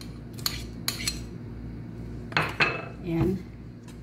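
A metal spoon clinking and scraping against a plate and a metal mixing pot as mango cubes are spooned in and stirred: a few sharp clinks, the loudest about two and a half seconds in.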